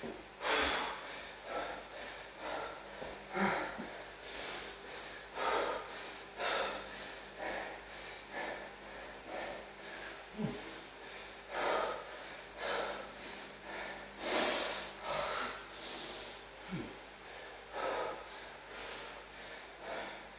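A man breathing hard, out of breath from a high-intensity circuit of deadlifts, burpees and chin-ups: heavy panting breaths about once a second.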